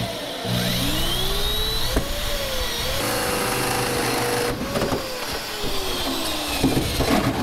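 Cordless drill running a hole saw through a sheet-metal wall, a steady cutting noise under the motor's whine. The whine rises in pitch over the first couple of seconds, holds, then sags slowly as the saw bites under load.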